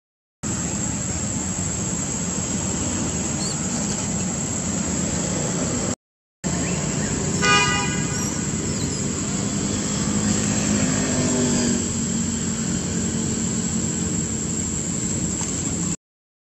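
Steady outdoor traffic noise with a short vehicle horn toot about seven and a half seconds in, then an engine passing with a slowly falling pitch. The sound cuts out to silence briefly three times.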